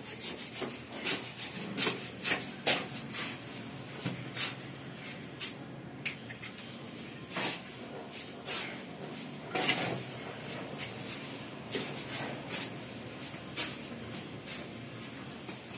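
Mason's trowel scraping and stirring wet cement mortar in a mixing pan, in irregular scrapes and taps.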